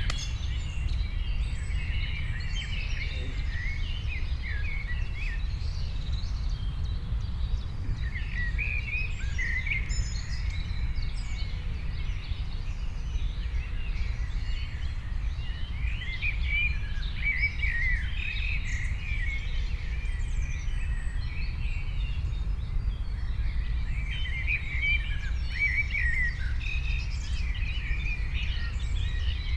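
Songbirds chirping and twittering in overlapping clusters of short, quick notes, with lulls between the clusters, over a steady low rumble.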